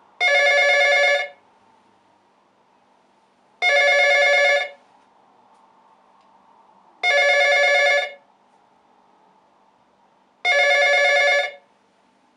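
Telephone ringing: four identical steady electronic rings, each about a second long, repeating about every three and a half seconds.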